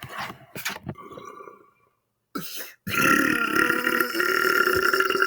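A man's long, loud belch lasting nearly three seconds, starting about three seconds in, after a few short, quieter mouth sounds.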